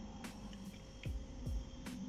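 Background music with a regular beat and deep bass notes that fall in pitch.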